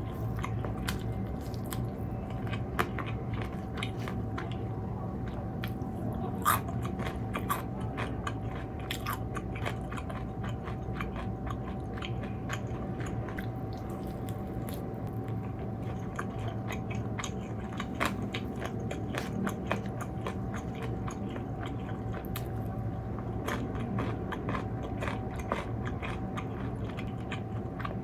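Close-miked biting and chewing of crisp fried food, a run of irregular crunchy clicks and smacks, over a steady low background hum.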